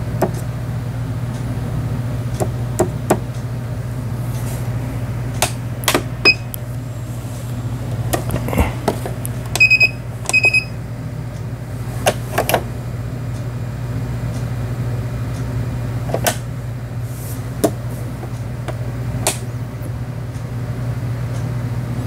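Janome Memory Craft 5000 computerised sewing machine running with a steady low motor hum while test-stitching fabric after repair, with scattered mechanical clicks. Two short electronic beeps from its control-panel buttons sound about halfway through.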